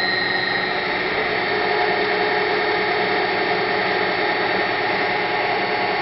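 A 5 hp electric test motor driven by a variable frequency drive, running steadily after a reversal: an even whir with steady high whining tones over it.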